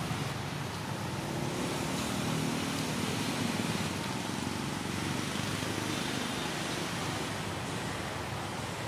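Steady outdoor ambient noise dominated by distant road traffic, with a faint low engine hum swelling about two to three seconds in.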